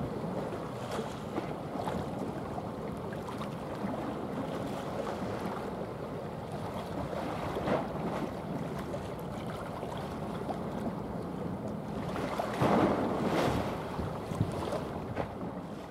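Wind buffeting the microphone over the wash of choppy water, with a stronger gust about three quarters of the way through.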